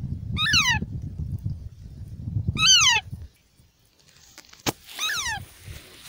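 Young Alexandrine parakeet calling three times, about two and a half seconds apart, each call a short squawk that falls in pitch. A low rumble runs under the first two calls, and a single sharp click comes just before the last.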